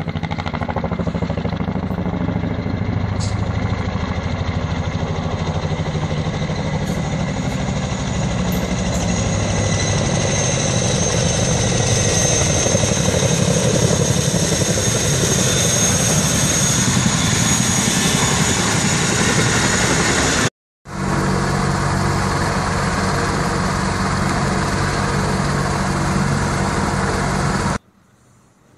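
CH-47 Chinook tandem-rotor helicopter flying low past: a steady, fast rotor beat under a high turbine whine that grows louder toward the middle. The sound drops out briefly about two-thirds through and cuts off suddenly near the end.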